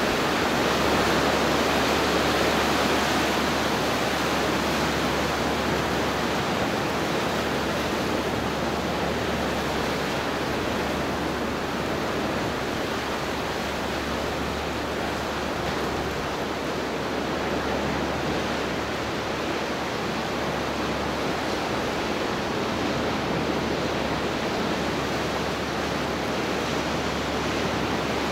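Pacific surf breaking and washing over rocks in a narrow rocky inlet: a steady rushing wash of water, louder in the first few seconds, then easing a little.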